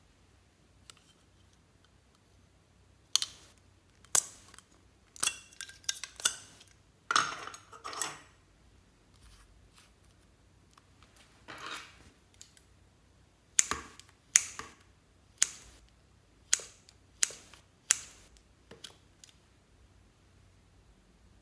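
Sharp plastic clicks and snaps from toy lipstick tubes being handled and opened, about a dozen in all, in two clusters with a short scraping rustle between them.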